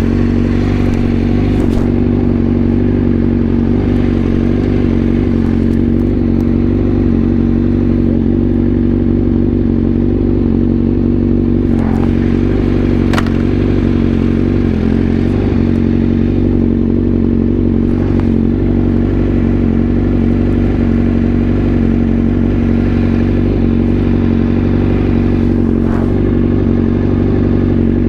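Honda CBR1000RR-R SP's inline-four engine running at a steady, unchanging speed, with a few brief clicks.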